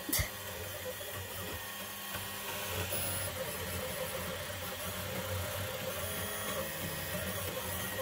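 ToyBox 3D printer running a print: its motors whir steadily as the print head moves over the bed laying down filament. A short click sounds just after the start.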